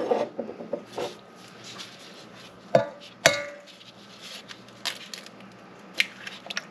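Raw chicken pieces being mixed by hand in a stainless steel bowl: soft wet handling sounds with scattered small knocks, and two sharper knocks about three seconds in, the second with a brief metallic ring from the bowl.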